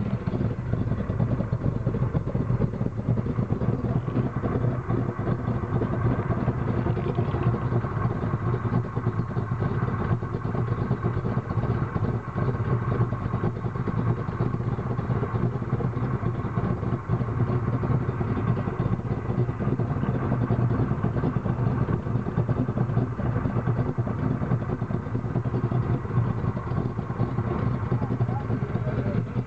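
A 427 stroker V8 in a 1969 Mustang Mach 1 idling steadily, heard from under the car beside the exhaust pipes.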